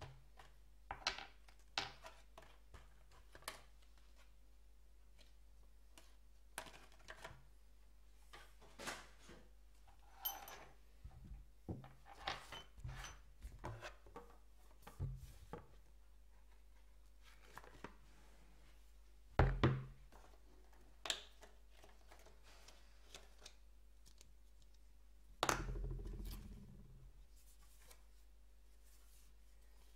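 Bicycle grips, their clamp rings and a saddle being unpacked from plastic-and-cardboard retail packaging: scattered light clicks, taps and rustles as parts and packaging are handled and set down on a wooden table. Two louder thunks come about two-thirds of the way in and again a few seconds later, the second trailing off over a second or so.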